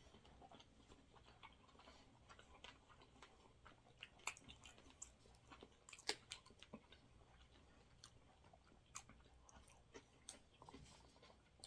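Faint chewing of sushi, with scattered soft clicks, the clearest about four, six and nine seconds in.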